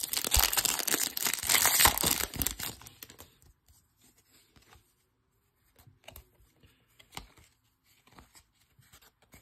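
A Panini Prizm trading-card pack wrapper being torn open and crinkling, loud for about three seconds. After that come quieter scattered rustles and small clicks as the cards are slid out and flipped through.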